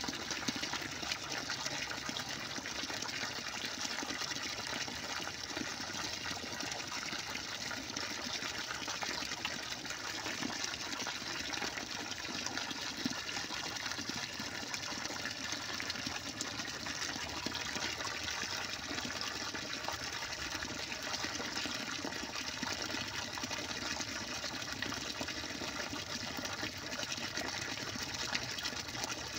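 Steady rushing of running water, even and unbroken throughout.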